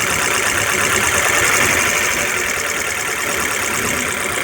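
Freshly overhauled Jeep Compass petrol engine idling steadily.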